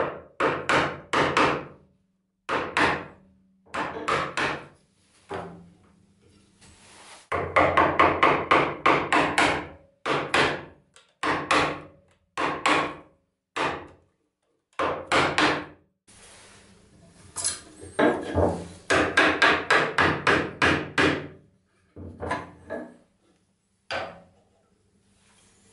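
A chisel driven into hardwood with quick mallet taps, chopping out a mortise: runs of sharp knocks, about four or five a second, broken by short pauses, thinning out to a few single taps near the end.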